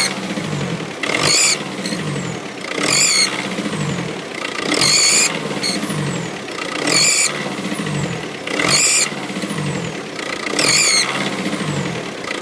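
Turbocharged car engine revved six times, about every two seconds, each rev bringing a loud high hissing whistle, with a thinner whistle falling away as the revs drop. It is the whistle that appeared after the turbocharger was replaced.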